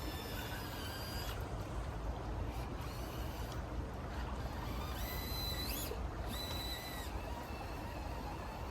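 Small electric motor of a Traxxas TRX-4M Defender RC crawler whining as it drives, cutting out after about a second and coming back about five seconds in with a short rising whine, over a steady low rumble and hiss.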